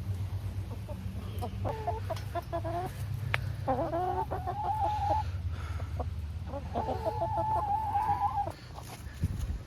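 Backyard hens clucking, with three drawn-out calls in a row over a steady low rumble.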